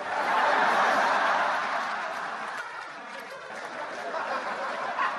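Theatre audience laughing after a punchline: a big burst of crowd laughter that starts at once, is loudest for the first couple of seconds, then slowly dies down.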